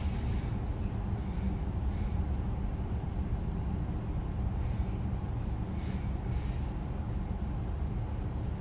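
Regional passenger train running along the line: a steady low rumble of wheels on track, with a few brief hissing flares.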